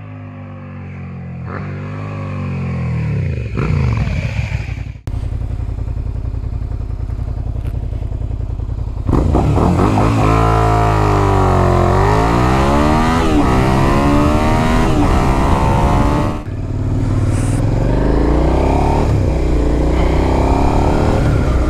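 Suzuki SV650's V-twin engine through a Cobra SC3 full exhaust system. First it is heard approaching, growing louder. After a cut at about five seconds it is heard from on board, pulling hard through several gears with rising pitch and a drop at each shift.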